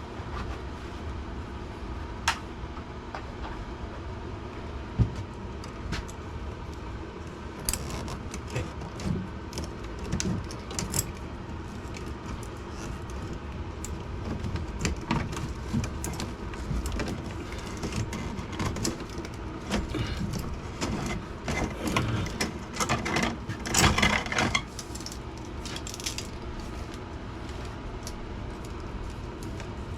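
Metal clicks, clinks and rattles of tools and wiring being handled at an electrical panel, scattered over a steady low hum, with a louder burst of rattling a little over twenty seconds in.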